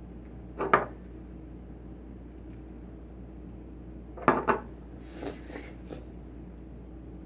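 Hard-boiled eggs being knocked to crack the shell: one sharp crack under a second in, two quick cracks a little past four seconds, then faint crackling of broken shell.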